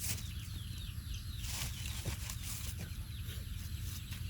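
Many short, high-pitched squeaks, each falling in pitch, from young animals, repeated over and over. Under them runs a steady low hum.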